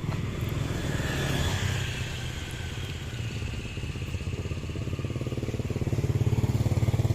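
An engine running steadily with a low, fast-pulsing hum, getting louder near the end.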